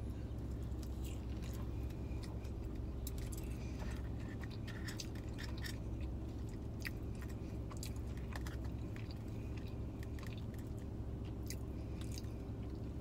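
Close-miked chewing of chili cheese fries, with many small wet mouth clicks, over a steady low hum.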